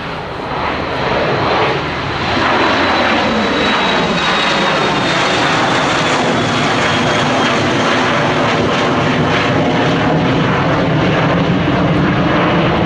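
Dassault Falcon 7X's three Pratt & Whitney Canada PW307A turbofans at climb power just after takeoff: loud jet engine noise that builds over the first two seconds and then holds steady, with a high whine that slowly falls in pitch.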